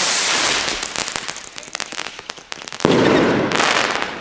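A cracker-tail firework rocket in flight: the hiss of its launch fades into rapid, dense crackling from its tail. Just under three seconds in, a sudden louder rush of crackling lasts about a second as the head bursts into crackling stars.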